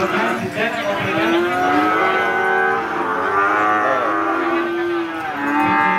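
Cattle mooing: several long, drawn-out calls, overlapping at times.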